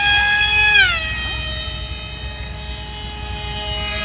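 Electric motor of a radio-controlled Su-30 model jet whining in flight. Its pitch drops about a second in as the throttle is eased back for landing, and it then runs steady at the lower pitch.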